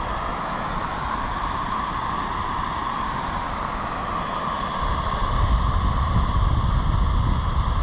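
Steady rush of a waterfall, with wind rumbling on the microphone that grows louder about five seconds in.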